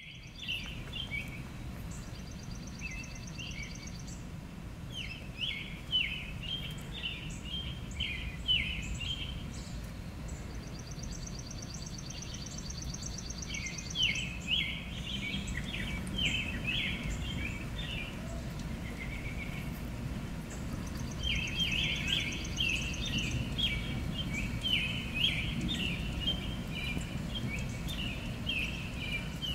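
Northern mockingbird singing in bursts of quick, repeated phrases, with a rapid high trill coming and going in runs of a couple of seconds, over a steady low rumble.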